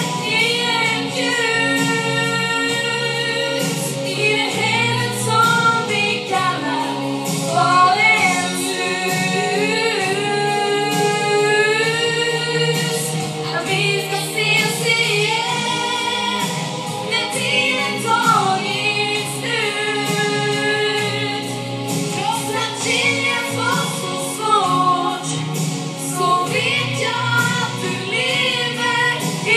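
A woman singing a slow song live into a handheld microphone, amplified through a PA, over instrumental accompaniment; long held notes with vibrato.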